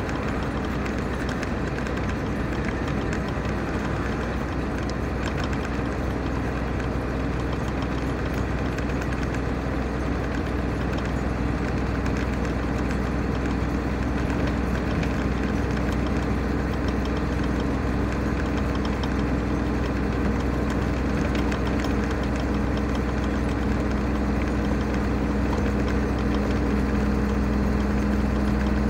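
Engine and road noise of a vehicle cruising on a motorway: a steady hum over tyre rumble that grows slightly louder toward the end.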